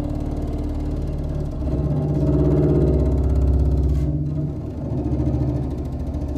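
Film soundtrack music of low, sustained notes that shift to new pitches every second or two.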